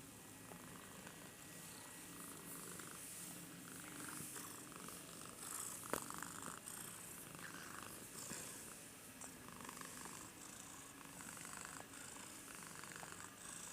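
A cat purring, faint, swelling and fading about once a second, with one sharp click about six seconds in.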